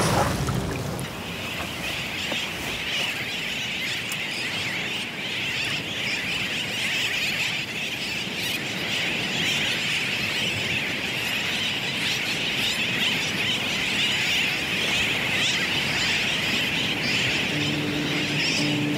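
A dense, unbroken chorus of many seabirds calling at once, a flock of sooty terns.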